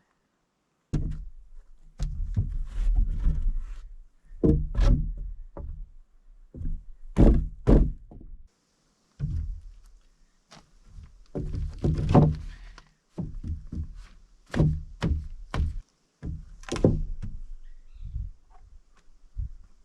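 Irregular heavy thumps and knocks of lumber being handled and set down on a wooden deck frame.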